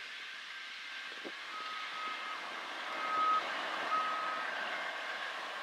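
Three short beeps, all at the same high pitch and spaced about a second apart, over faint steady background noise.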